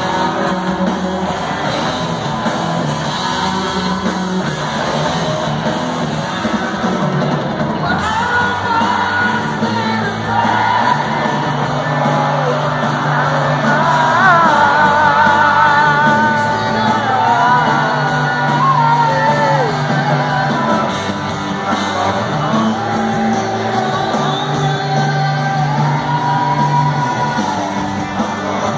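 Live rock band playing in an arena, with a male lead singer's high, wavering vocal line over guitars, bass and drums, heard from the audience with the hall's echo.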